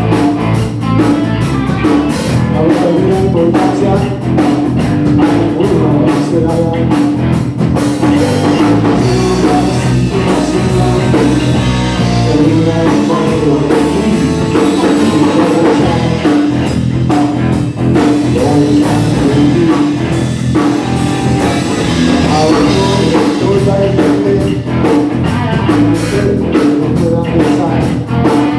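Rock and roll band playing a boogie with guitar and drum kit, a steady driving beat.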